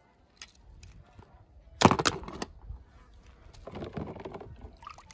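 A quick cluster of sharp clicks and knocks about two seconds in, then a softer scraping rustle a little later.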